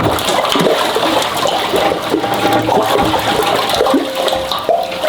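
Water rushing and splashing.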